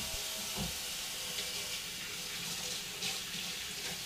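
Kitchen tap running steadily at the sink while hands are washed under the stream.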